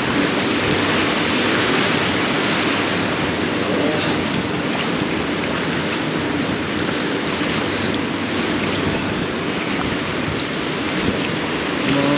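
Waves surging and washing around the barnacle-covered pier pilings in a steady rush, with wind buffeting the microphone.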